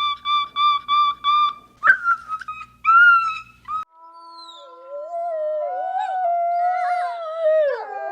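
Dogs calling: first a rapid run of short, high yelps, about four a second, then several long wavering howls held together that drop in pitch near the end.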